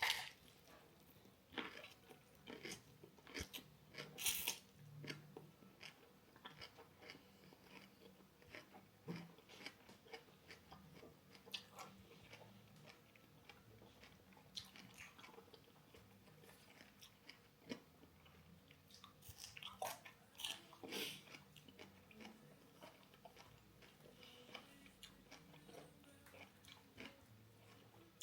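Faint, close-up chewing and crunching of Thai green papaya salad (som tum), with irregular crisp bites and clusters of louder crunches.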